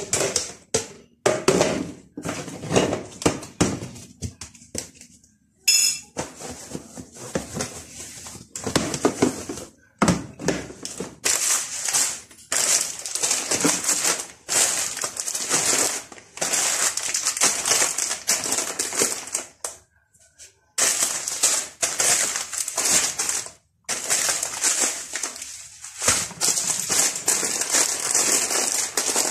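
Plastic packets of rice and pasta crinkling and rustling as they are handled and packed into plastic storage baskets, with occasional knocks of packets and baskets against the shelf.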